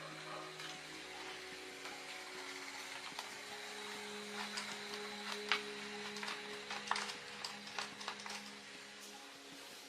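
A steady hiss with held low tones that shift now and then, and scattered light clicks and taps throughout.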